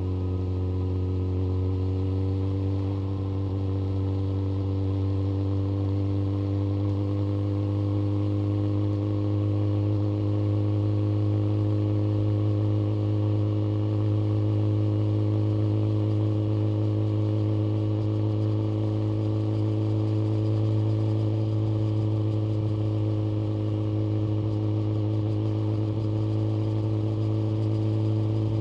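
Yamaha FZ1 Fazer's inline-four engine pulling at steady speed, its note rising a little over the first few seconds and then holding even.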